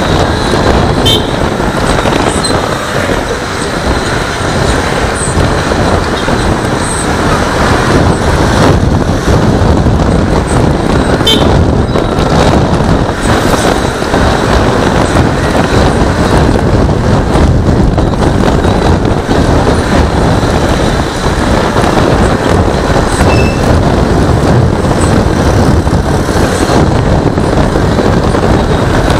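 Loud, steady wind and road rumble from a Honda Click 150i scooter riding through town traffic, picked up by a camera mounted on the scooter.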